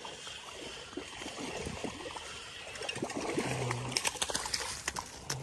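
Water splashing and trickling as a hooked smallmouth bass is played in to the river's edge, with scattered clicks and rustles of handling in the last second or so.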